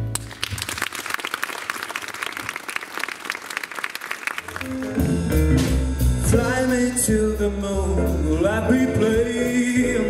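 Audience applauding for about four seconds after a song. Then a small jazz band of double bass, piano and drums starts the next tune.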